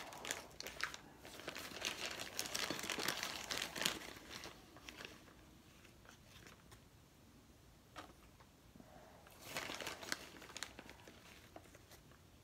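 Plastic bag crinkling and rustling as hands dig into it and scoop dry bentonite powder out, in two spells of crackling with quieter handling between.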